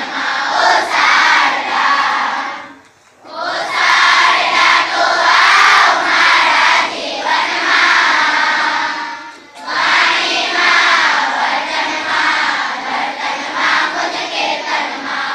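A large group of children singing a prayer together in unison, in long phrases with two short breaks, about three and about nine and a half seconds in.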